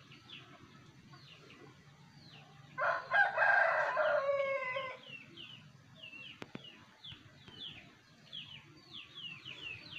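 A rooster crowing once, a call of about two seconds starting about three seconds in, over quick, repeated chirps of small birds.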